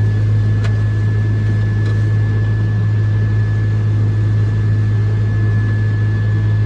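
Heavy farm machine's engine droning steadily, heard from inside the cab, a constant low hum with a thin steady high whine over it.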